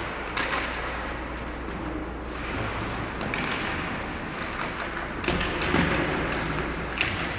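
Ice hockey arena sounds: a handful of sharp knocks from sticks and pucks echoing through the rink, the strongest cluster a little past the middle, over a steady low hum.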